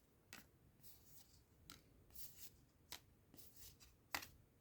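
Faint handling of trading cards: soft swishes of cards sliding past each other as a pack is flipped through, with light ticks now and then, the sharpest about four seconds in.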